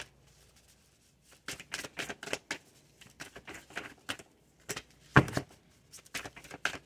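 A deck of tarot cards being shuffled by hand, packets pulled from one hand into the other, in quick runs of short card slaps and flicks. It starts about a second in, with the loudest slap about five seconds in.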